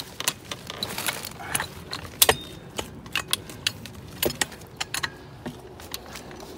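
Irregular sharp metallic clinks and rattles from a steel farm jack and its strap hardware being handled and set against a fence post.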